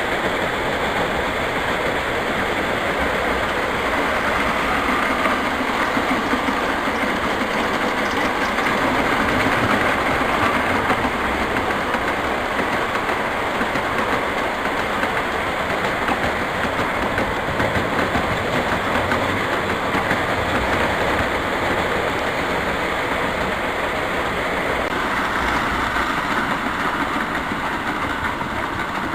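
O gauge three-rail model trains running on the track: a steady, continuous mix of wheel-on-rail and motor noise, shifting slightly near the end.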